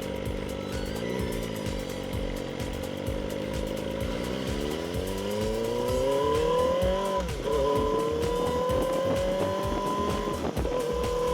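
2024 Kawasaki Ninja ZX-4RR's inline-four engine through its stock exhaust while riding: a brief rev about a second in, then accelerating with the pitch climbing, a sharp drop in revs at an upshift about seven seconds in, and the revs climbing again after it.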